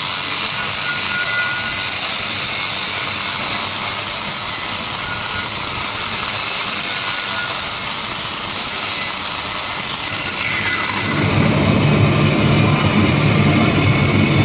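Angle grinder running against a weld bead on steel pipe: a steady high grinding noise. About eleven seconds in it spins down with a falling pitch, and a low steady engine hum is left near the end.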